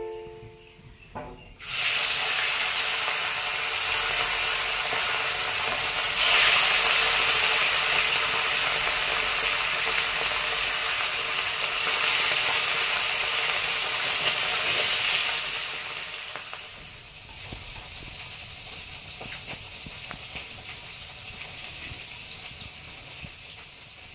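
Fish pieces deep-frying in oil in an iron kadai: a loud steady sizzle that starts abruptly a couple of seconds in and settles to a quieter sizzle about two-thirds of the way through.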